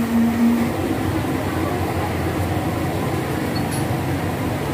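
Steady rumbling background noise at a busy street-food stall; a steady hum stops about a second in.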